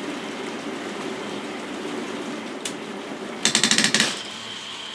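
K'nex robot arm's plastic gears and transmissions running with a steady rattle. A single sharp click comes a little past halfway, then a loud burst of rapid clicking, about fourteen a second, for half a second. This is where the third joint misbehaves as it tries to stop going down, a fault the builder puts down to its read head.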